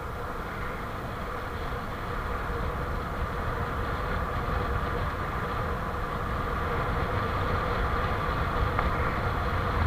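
Wind rushing over the microphone and tyres rumbling on the road as a bicycle runs fast down a steep 10% descent. The noise grows gradually louder as the bike picks up speed.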